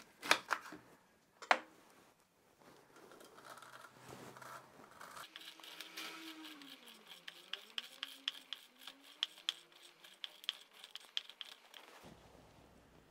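A chef's knife cutting through a pomegranate on a wooden board, with a few sharp knocks in the first second and a half. Then pomegranate halves pressed and twisted on a plastic manual citrus juicer, a rapid crackle of arils crushing against the ribbed reamer for about seven seconds.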